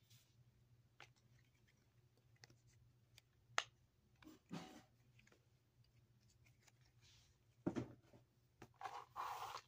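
Quiet handling noises from pop-it fidget toys being sorted: a few soft clicks and knocks, then a short rustling slide near the end.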